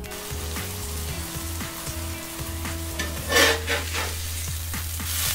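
Ground beef patty sizzling in oil on a hot cast iron plancha, a steady frying hiss. About three and a half seconds in, a spatula works the patty, giving a short, louder burst of scraping and sizzle.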